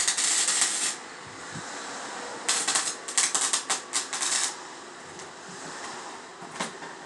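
Welder crackling through short spot welds: one burst of about a second, a longer burst of about two seconds, then a brief one near the end.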